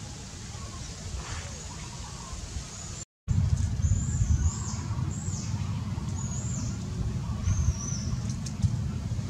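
Baby macaque crying with repeated short, high, thin squeaks that rise and fall, starting after a brief dropout about three seconds in. A low rumble runs underneath.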